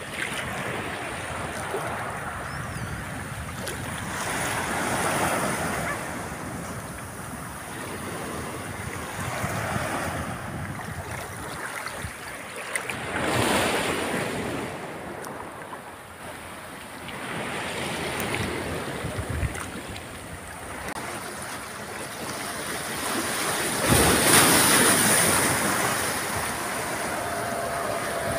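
Small sea waves washing onto a pebble beach and around a microphone held just above the water, swelling and fading every few seconds.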